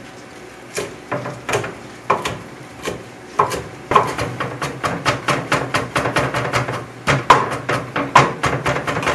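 Kitchen knife chopping fresh basil leaves on a wooden cutting board: a few separate cuts at first, then from about four seconds in rapid mincing at several strokes a second, with a brief pause near the seven-second mark.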